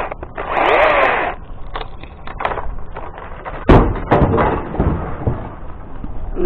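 Chainsaw revs briefly with a rising pitch, then stops, followed by a scattering of knocks and thuds, the loudest about three and a half seconds in.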